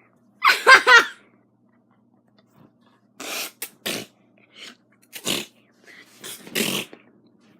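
A woman sneezing over and over: a loud sneeze with a high voiced cry in it about half a second in, then a run of shorter, sharp sneezes between about three and seven seconds in.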